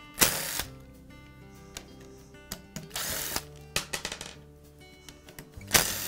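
Makita cordless driver spinning in three short bursts, about half a second each, as it backs screws out of a plastic tool handle, with a few clicks between the second and third bursts. Background music with sustained tones plays throughout.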